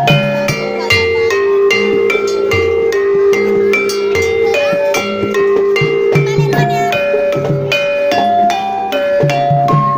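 Gamelan playing jaran kepang music: tuned metal keys or kettles struck in a steady quick pulse of ringing notes over held lower tones, with drumming.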